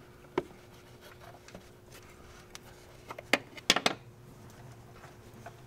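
Handling noises from feeding a rubber vacuum hose through the engine bay: a sharp click about half a second in, then a quick cluster of clicks and knocks just before the four-second mark, over a faint steady hum.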